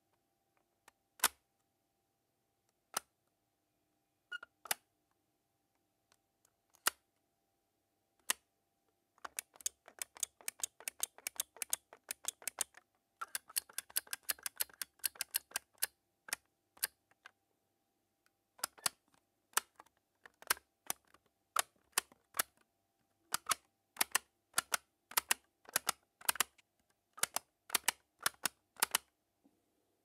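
Plastic rocker switches of a battery-powered twin-panel LED light being flipped on and off with a finger: sharp clicks, a few spaced ones at first, then rapid clicking for several seconds, a short pause, and steady clicks about two or three a second near the end.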